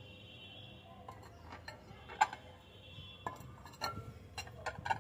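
Glass plates clinking and knocking lightly as they are handled and set down on a concrete floor: a scatter of short separate clinks, the loudest about two seconds in.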